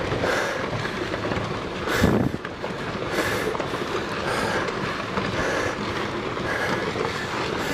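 Rockfall: rocks tumbling and clattering down a volcanic slope in a continuous rumble, with a louder burst about two seconds in.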